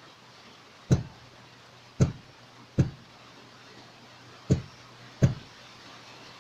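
Five dull knocks at uneven intervals, as a fidget spinner's finger pads are pressed back onto its bearing.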